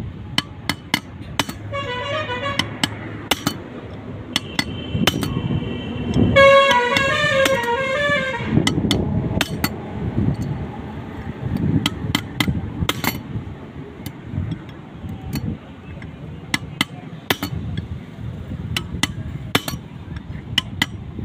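Metal tools tapping and clinking on metal parts, with irregular sharp knocks throughout. A vehicle horn honks in short pulses twice, briefly about two seconds in and louder from about six and a half to eight seconds.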